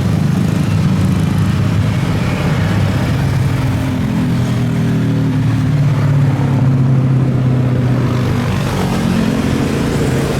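Jet airliner engines rumbling, with a few low tones slowly drifting in pitch.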